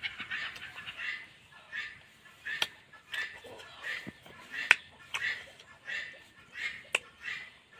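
Close-up eating sounds: sucking and smacking on a piece of cooked chicken held in the hand, with repeated short wet mouth noises and a few sharp smacks.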